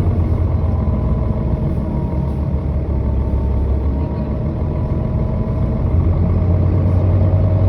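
Mercedes-Benz O530G articulated bus's diesel engine running with a heavy low drone and a thin high whine above it. The drone eases off in the middle and builds again near the end.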